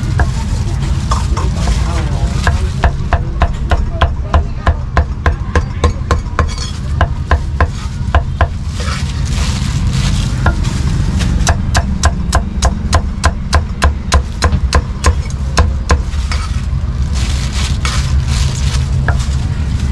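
Cleaver chopping meat on a thick round wooden chopping block: a fast run of sharp knocks, about three or four a second, from a couple of seconds in until near the end, with the blade scraping and gathering the meat between runs. A steady low rumble lies underneath.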